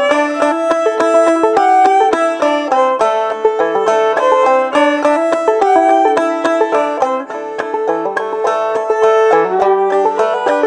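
Fiddle and clawhammer banjo playing an old-time tune together: steady, evenly rhythmic picked banjo notes under the fiddle's bowed melody.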